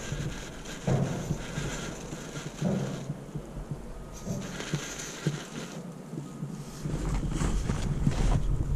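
Axial UTB18 Capra mini RC rock crawler on a 3S battery, its small electric motor revving in repeated bursts while the tyres churn and spray snow as it claws up a snow bank.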